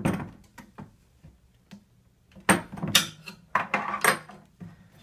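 Irregular knocks and clunks of a stunt scooter's deck and rear wheel being handled: one knock at the start, then a cluster of clunks and rattles in the second half.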